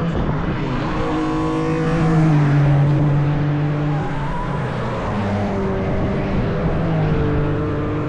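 Race cars' engines going past one after another, their pitch shifting up and down through the gears.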